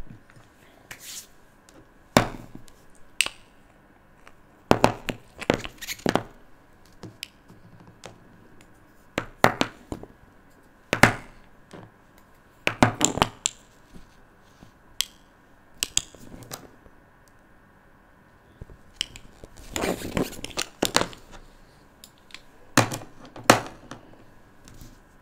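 Plastic glitter glue tubes being picked up and set down on paper: a scattered series of short clicks and knocks, with a longer rustling stretch about twenty seconds in.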